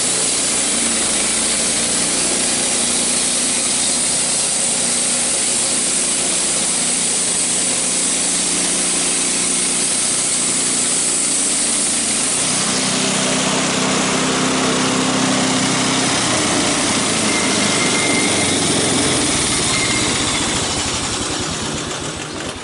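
Homemade band saw mill, driven by a 9.5 hp snowblower engine, running steadily while its blade saws through a poplar log. The engine note changes about halfway through as the blade reaches the end of the log, and the sound dies away near the end.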